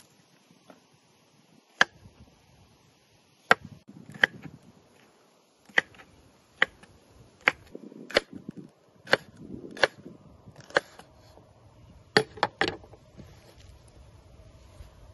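Chef's knife slicing a red bell pepper on a wooden cutting board, the blade knocking sharply on the board about a dozen times at an irregular pace, with three quick knocks near the end.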